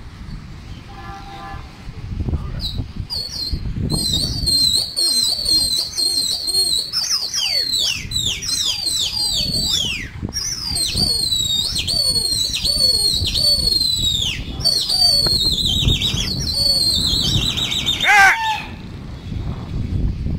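A pigeon flyer whistling shrilly at a flying flock: a long run of quick, high whistled notes, many sliding downward, beginning a few seconds in and stopping near the end with one upward glide. Wind buffets the microphone underneath.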